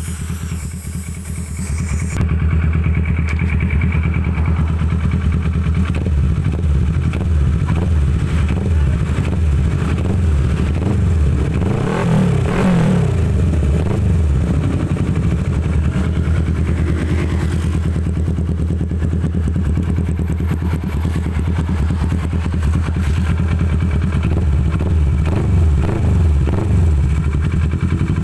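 Kawasaki ER-6f's parallel-twin engine running through an aftermarket F2Racing full-system exhaust, idling steadily. It revs up and back down about twelve seconds in.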